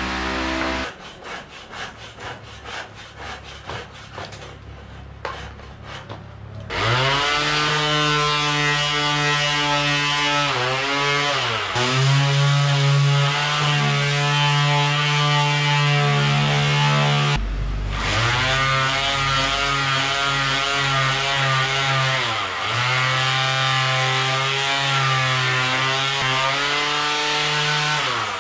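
A quick series of clicks over the first few seconds. Then a handheld electric power tool sands the wooden cot's turned post, running steadily. Its pitch dips briefly twice, and it cuts out for a moment near the middle.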